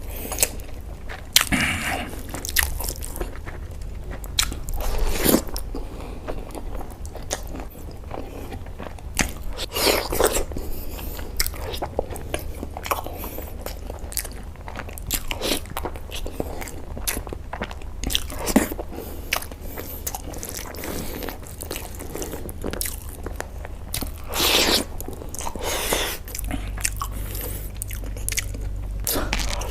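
Close-miked eating: biting, crunching and chewing food in irregular mouthfuls, with several louder crunchy bites, over a steady low hum.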